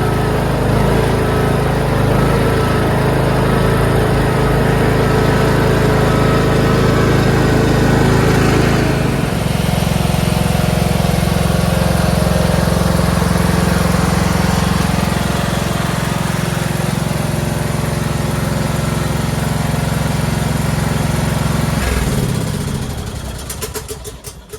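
Craftsman LT2500 lawn tractor's Kohler engine running steadily, its tone shifting about nine seconds in. Near the end it is shut off and winds down to a stop.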